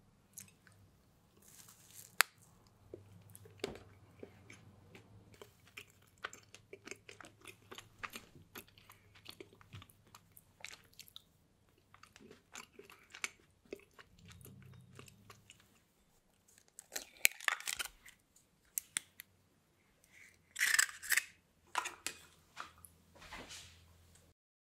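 A person chewing a bite of soft chocolate-coated choco pie, with many small wet mouth clicks. A few louder chews come in clusters late on.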